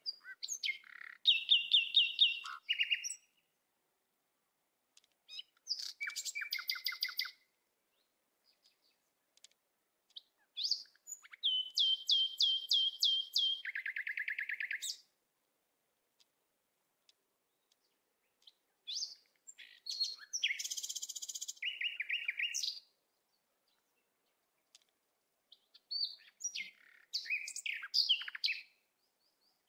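A songbird singing in five separate phrases of rapid repeated high notes, each lasting two to four seconds, with pauses between them. Some phrases drop to a lower trill near their end.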